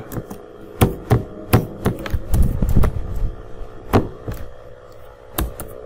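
Computer keyboard typing: a dozen or so irregular, sharp keystrokes, with a faint steady hum underneath.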